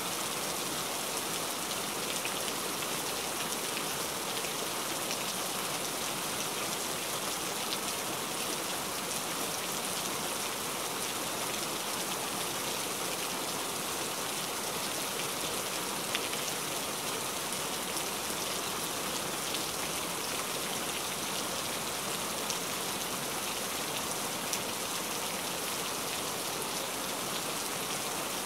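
Steady rain falling: an even hiss with a few faint drop taps scattered through it.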